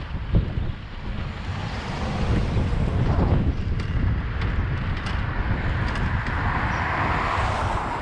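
Wind buffeting the microphone of a moving bicycle with a steady low rumble, with a few light clicks and rattles midway and a brighter hiss that swells near the end.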